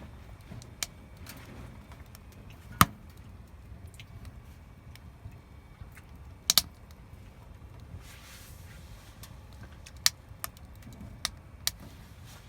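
Wood fire crackling, with scattered sharp pops of burning wood. The loudest pop comes about three seconds in and a quick pair follows near the middle, over a low steady rumble.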